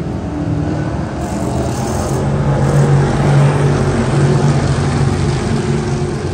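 A 358 small-block V8 dirt modified race car engine running hard on track, its note swelling louder about halfway through.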